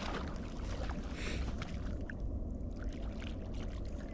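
Wind buffeting the microphone, a steady low rumble with a few faint clicks and rustles.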